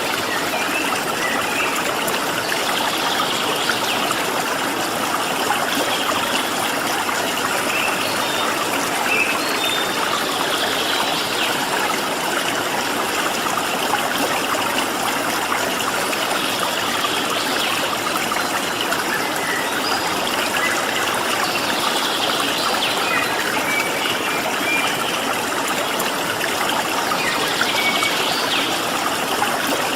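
Stream water flowing steadily in an even rush, with small birds giving short, scattered chirps over it.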